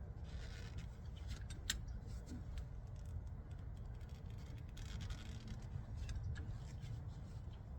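Faint hand-work noises on brake parts: a few light metallic clicks and two short scraping rubs over a low steady rumble.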